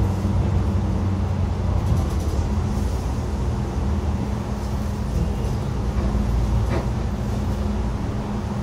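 Xiamen King Long XML6125 hybrid city bus on the move, heard from inside the cabin: a steady low engine and road rumble with an even hum.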